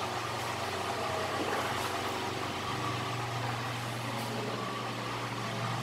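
Steady low mechanical hum with a faint hiss over it, a little stronger from about three seconds in.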